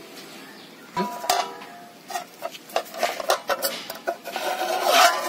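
Aluminium lid being set onto a metal cooking pot: a ringing metal clank about a second in, then a run of small clinks and knocks as the lid is settled and pressed down.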